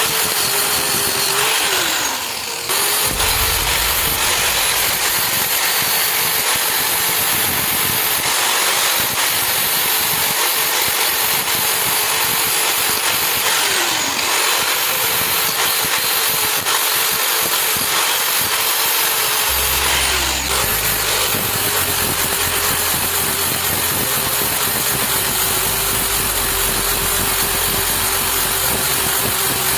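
Electric power tool's motor running steadily, its pitch sagging briefly three times as it is pressed into the work.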